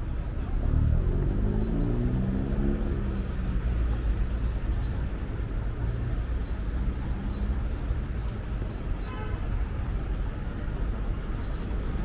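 City street traffic with a bus engine running close by: a steady low rumble that swells in the first few seconds.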